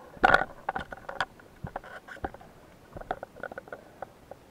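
Irregular sharp clicks and knocks heard underwater: a dense loud cluster about a quarter second in, then scattered clicks until near the end.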